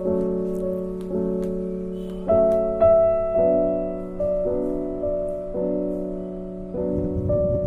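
Background music: slow piano chords, each held for about a second before the next.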